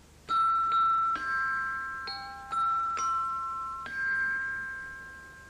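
Music: a slow, gentle tune of single bell-like notes, about seven of them, each struck and left ringing until it fades.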